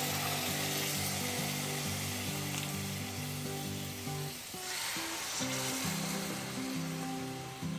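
Marinated chicken breast pieces sizzling as they are laid into hot oil and butter in a nonstick pan, the hiss strongest at first and thinning about halfway through. Background music plays underneath.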